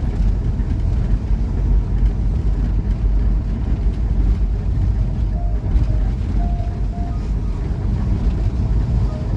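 Steady low rumble of engine and tyre noise heard from inside the cab of a Kia Bongo III camper van driving slowly.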